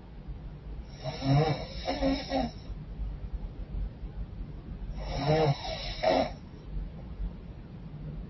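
A woman snoring in her sleep with a blocked, runny nose: two snoring breaths about four seconds apart, each lasting about a second and a half, over a low steady hum.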